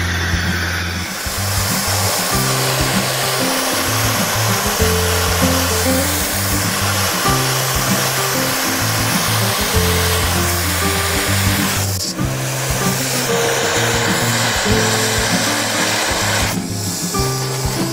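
Gas torch flame hissing steadily as it heats a radiator's metal tank and pipe neck for soldering, over background music with a stepped bass line. The hiss thins briefly about twelve seconds in and again near the end.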